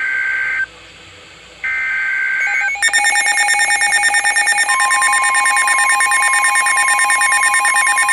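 NOAA Weather Radio SAME data bursts: the end of one burst and then a full second one, each about a second of harsh two-pitch warbling, the digital header announcing a new warning. About three seconds in, a weather radio's alert alarm starts with rapid pulsing beeps, and a steady warning alarm tone joins a couple of seconds later.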